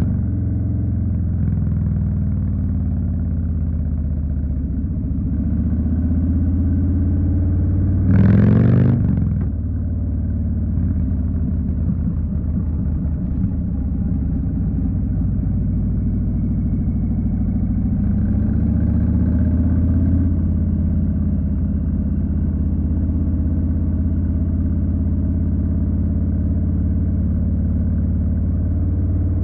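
2020 Harley-Davidson Street Bob's Milwaukee-Eight 107 V-twin running under way, its engine note rising and falling with throttle. About eight seconds in, a brief louder rev.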